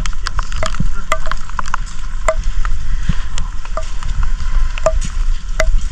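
Steady rain, with irregular sharp taps of drops striking close by, several a second.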